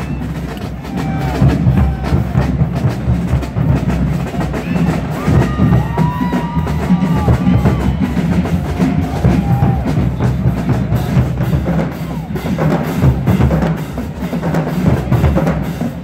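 Marching band drumline playing a cadence: bass drums and snare drums beating a steady, dense rhythm with rolls.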